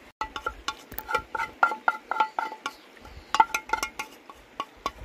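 Cutlery clinking and scraping against a plate of pasta during eating: a quick, irregular run of small clicks, many with a short ringing note.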